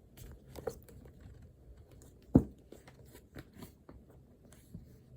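Desk handling noises: scattered small clicks and taps, with one loud knock a little over two seconds in, as things are moved about and set down on a desk.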